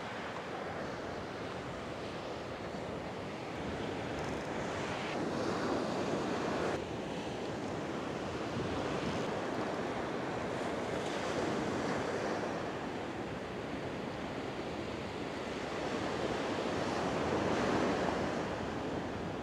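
Ocean surf breaking on a sandy beach, a steady wash that swells louder three times as waves break.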